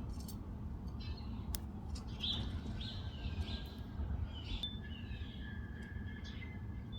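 Small birds chirping, a run of short, quick notes in the middle, over a steady low background rumble.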